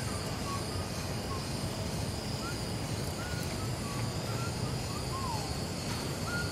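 Small birds chirping and whistling now and then, short notes and brief glides, over a steady low rumble of outdoor background noise.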